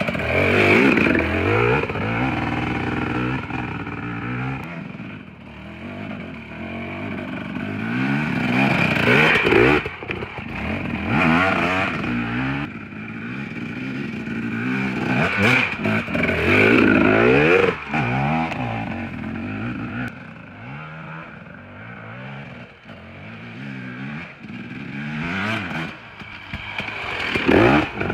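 Dirt bike engine revving up and down through the throttle on a tight trail, growing loud several times as the bike passes close and fading between passes.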